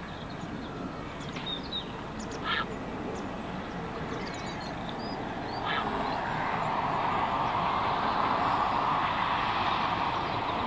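Ducks quacking twice and small birds chirping faintly over a steady background hum. About halfway through, a motorboat's engine comes in and grows louder as the boat crosses the water.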